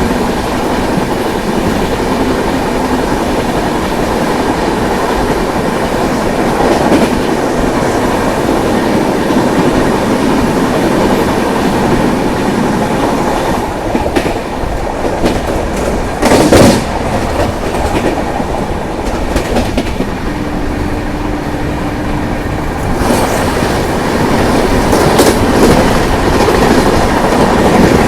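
Train running along the track, its wheels clattering over the rail joints, with a louder clatter about sixteen seconds in and a short steady tone a few seconds later.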